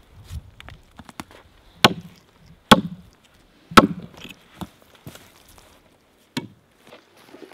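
Hatchet chopping into the bark of a felled Douglas fir log, cutting a mark where the log will be bucked. Three sharp strikes come about a second apart, then a lighter knock near the end.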